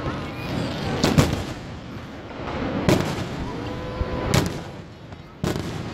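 Aerial fireworks shells bursting with sharp bangs, four in about five seconds, each trailing off in a rumbling echo, over a constant low rush of noise.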